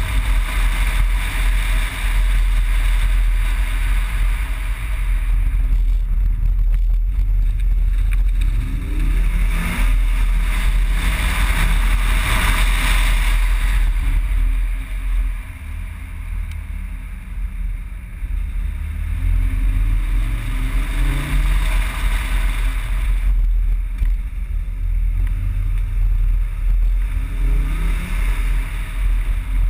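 Audi quattro's turbocharged five-cylinder engine pulling hard on a twisty road, its revs climbing several times with a quieter lift-off about halfway through. Heavy wind buffeting on the body-mounted camera runs under it all.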